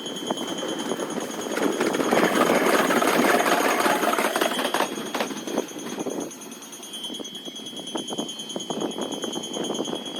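A Japanese level-crossing warning bell rings over and over with a steady high electronic tone. Under it a train passes: a swelling rush of noise that peaks a couple of seconds in and fades by about six seconds. After that come a string of sharp clicks, like wheels over rail joints.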